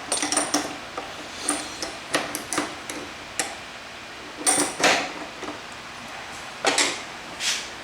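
Wrench clinking on a table saw's blade arbor nut as the nut is tightened down: a dozen or so sharp metallic clicks and clanks at irregular intervals.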